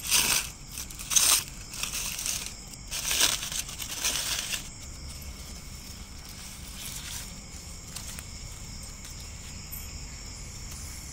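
Aluminium foil around a banana-leaf-wrapped fish crinkling and tearing in four or five bursts as it is peeled open by hand. The crinkling stops about halfway through, leaving a steady high insect chirring.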